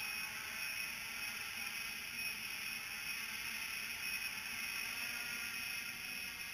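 Small multirotor drone's motors and propellers whirring steadily while it hovers under barometric altitude hold.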